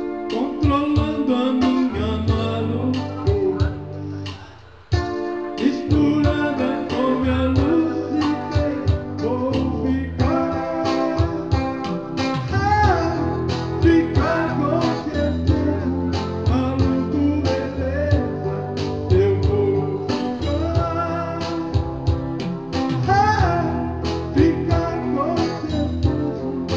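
Live guitar music with a steady beat, with sliding melodic lines over it. The playing dips and stops briefly about five seconds in, then starts again.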